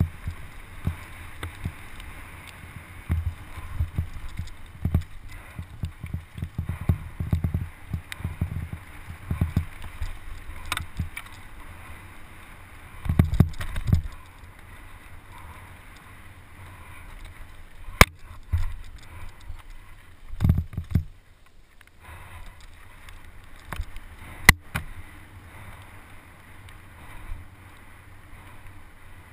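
Mountain bike descending a wet dirt trail, heard from a helmet-mounted camera: a steady rush of tyre and wind noise with repeated low thumps and rattles as the bike hits bumps. Two sharp clicks stand out in the second half.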